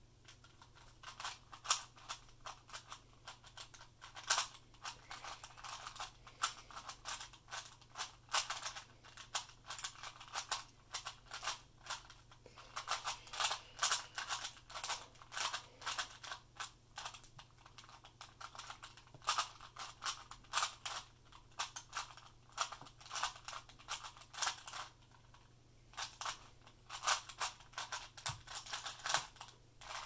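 3x3 Rubik's cube being turned fast by hand: quick runs of plastic clicking and clacking as the layers snap round, with brief pauses between runs.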